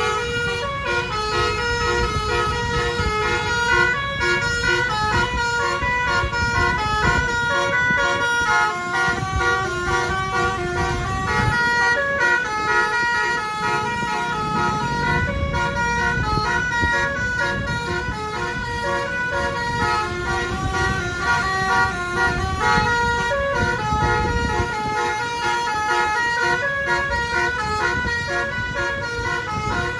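A bus's telolet basuri multi-tone horn playing a long melody of stepped notes, over a low rumble of vehicle and road noise.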